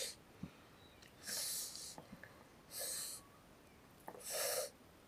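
A person breathing through the nose close to the microphone: three soft breaths about a second and a half apart. Faint small clicks of eggshell being picked off fall between the breaths.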